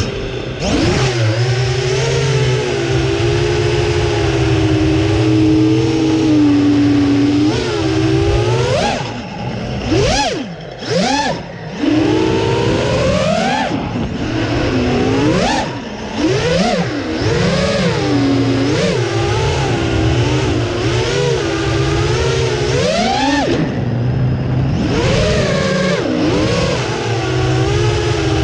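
Six-inch FPV freestyle quadcopter's four brushless motors (Konasty 1739KV on 6S, Azure 6145 props) buzzing, their pitch swinging up and down with the throttle. Around ten to twelve seconds in, and again briefly near sixteen and twenty-four seconds, the throttle drops off and punches back up in quick swoops.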